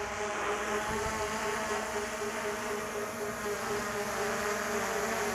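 DJI Mini 4 Pro drone's propellers making a steady buzzing hum in flight, the pitch holding even throughout.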